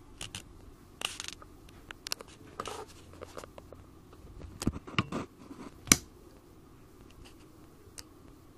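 Handling noise of a paper worksheet on a desk: scattered short scrapes and clicks, the sharpest about six seconds in.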